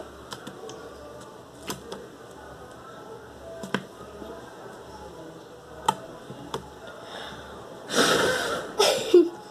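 Homemade butter slime being handled, giving a few sharp clicks: the slime is a little clicky. Near the end comes a louder noisy rush of about a second.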